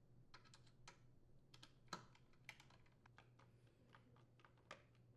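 Faint, irregular clicks and taps of a Torx screwdriver and hands working on a hedge trimmer's plastic handle assembly and engine housing while its mounting screws are driven in. The two loudest clicks come about two seconds in and near the end.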